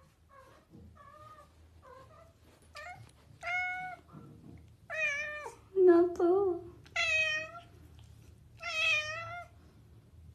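Domestic cat meowing over and over, about nine meows, soft at first and getting louder, the later ones long and drawn out. A lower-pitched call about six seconds in is the loudest.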